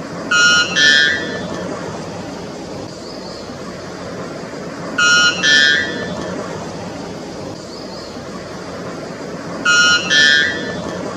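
White bellbird singing its loud two-note song three times, about every four to five seconds. In each song the second note is slightly higher than the first. A steady hiss of background noise runs underneath.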